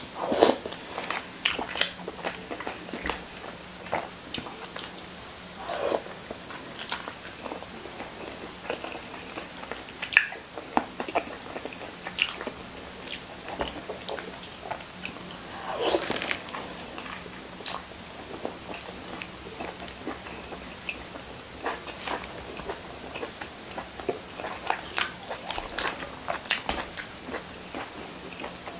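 A person eating braised salmon head from a bowl with a metal spoon: chewing and mouth sounds, with many short sharp clicks scattered throughout.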